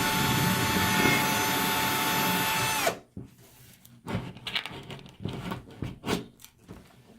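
Power drill boring a hole into the bathroom wall, running at a steady whine, then stopping abruptly about three seconds in. Scattered light knocks and clicks follow.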